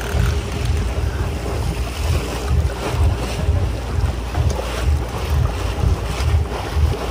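Wind buffeting the microphone in uneven low gusts, over the wash of sea water around a boat.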